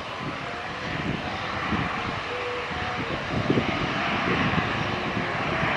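Twin turboprop engines of a high-wing military transport plane running as it taxis slowly: a steady propeller and turbine drone with a hiss, growing slightly louder.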